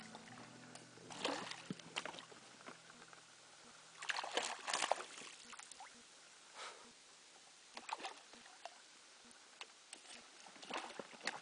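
Irregular short splashes and sloshing of water around a small boat, the loudest cluster about four seconds in. Background music fades out in the first second or so.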